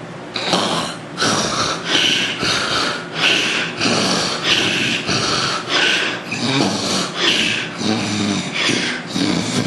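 A man snoring and snorting through an obstructed nose: rough, noisy breaths coming quickly, about one and a half a second, starting a moment in.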